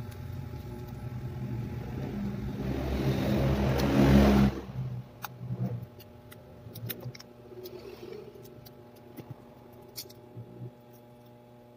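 A motor vehicle engine that swells in level to a loud peak about four seconds in and then drops away sharply, followed by scattered light clicks and taps from small phone parts being handled.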